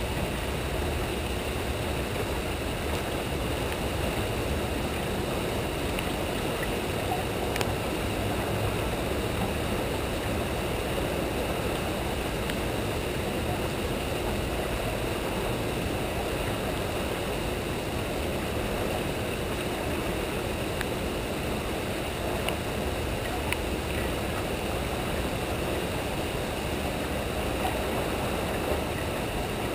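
Steady rushing of turbulent tailwater below a hydroelectric dam, an even, unbroken noise with a few faint ticks.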